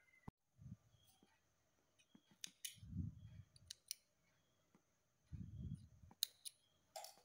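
Small scissors snipping crochet yarn to cut it off after the last chain: a few sharp clicks of the blades, mostly in pairs, with soft low thumps of the fabric being handled between them.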